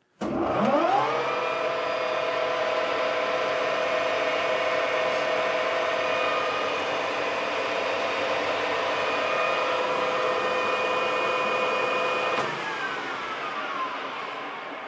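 Colchester Student 1800 geared-head lathe spindle started with the lever, running up to speed within a second and then running steadily at 1340 rpm with no work in the chuck: a machine hum with several steady whining tones from the headstock gears. About twelve seconds in it is switched off and spins down, the whine falling in pitch.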